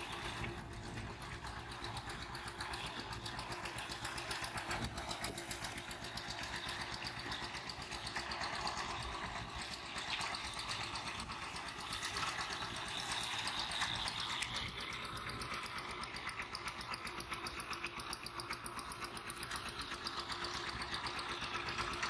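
A small engine running steadily in the background.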